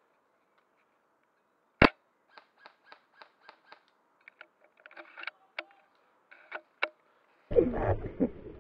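A single shot from an upgraded spring-powered bolt-action airsoft sniper rifle, a SAR10 copy of the VSR-10: one sharp crack about two seconds in. A run of faint quick ticks and clicks follows, and handling and rustling noise starts near the end.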